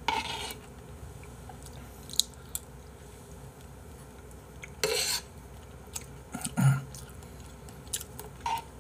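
Eating abalone rice porridge with a metal spoon: a few short chewing and mouth noises, the loudest about two-thirds of the way through, with faint clicks of the spoon against the bowl.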